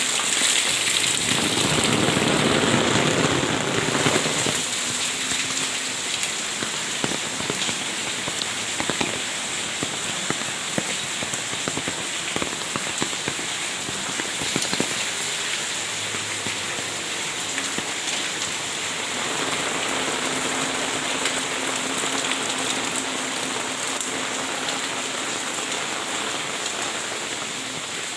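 Steady rain falling, a dense hiss dotted with the clicks of single drops. A low hum joins in about two seconds in and fades after a couple of seconds, then comes back faintly later.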